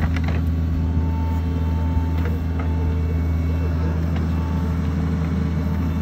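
Hitachi mini excavator's diesel engine running steadily while the hydraulic arm digs and dumps soil.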